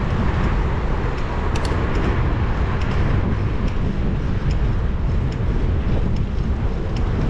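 City street traffic and road rumble heard from a moving bicycle: a steady low rumble with a few faint ticks scattered through it.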